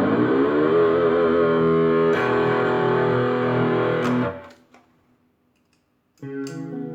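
Chinese-made Ibanez JEM-style electric guitar played through distortion: the pitch of a ringing chord bends upward and then holds, wavering. It is cut off about four seconds in, and after a short silence a new chord is struck near the end.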